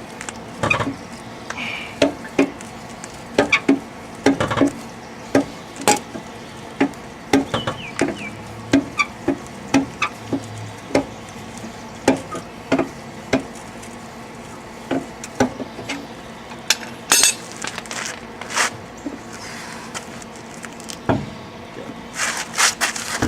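Scissor car jack being cranked higher by its handle, a repeated metallic clink about every half second to a second. The clinks thin out about two-thirds of the way through.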